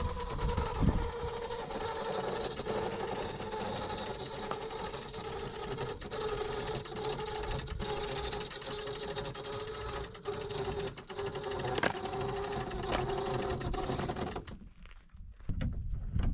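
A small electric motor runs with a steady whine, raising the pop-up roof of a Palomino Bronco 1251 truck camper. It stops abruptly about fourteen and a half seconds in, once the roof is up.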